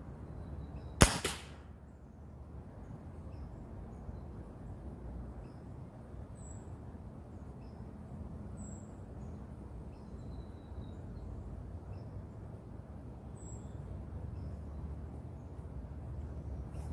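A single shot from a .30 calibre Hatsan 130 QE Vortex air rifle about a second in: one sharp crack with a short tail. Faint bird chirps continue behind it.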